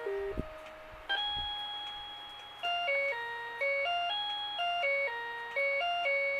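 Rhythm Clock 'Melody Box Eight' melody alarm clock playing one of its classical tunes in a clean tone unlike a plain electronic beep. A phrase ends, two low knocks sound in the first second and a half, and a new melodic line starts with a long held note, then moves into quicker, even notes.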